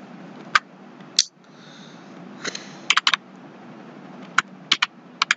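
Computer keyboard being typed on: a scattered handful of sharp key taps, some in quick runs and some alone with pauses between, over a steady background noise.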